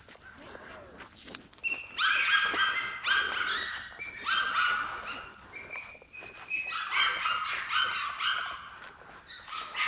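Small dog barking repeatedly in high-pitched yaps, starting about two seconds in and coming in quick clusters.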